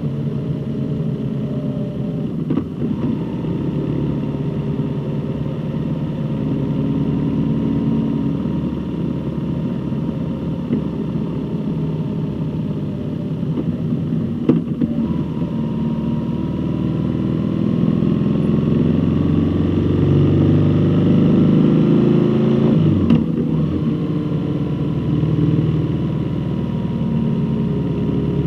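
A road vehicle's engine running while driving, its pitch climbing steadily for several seconds through the middle of the stretch and then dropping abruptly near the end.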